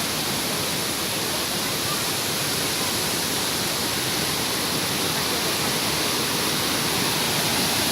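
Steady rushing of a waterfall, a constant even roar of falling water.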